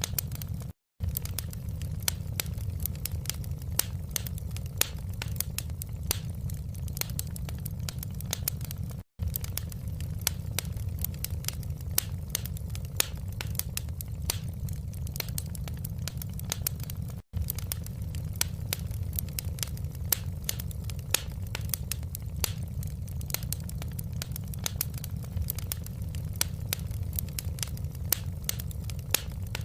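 Wood fire crackling in a fireplace: a steady stream of sharp pops and snaps over a low, even rumble. The sound drops out to silence for a split second three times.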